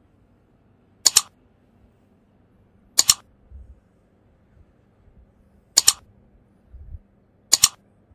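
Mouse-click sound effect, clicking four times about two seconds apart, each a quick double click of press and release.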